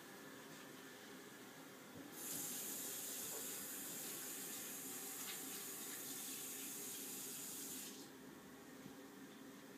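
Steady hiss of running water that starts suddenly about two seconds in and stops about six seconds later.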